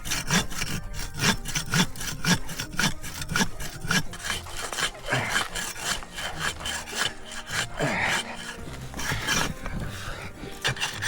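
Hand saw cutting through the trunk of a Christmas tree in quick, even back-and-forth strokes.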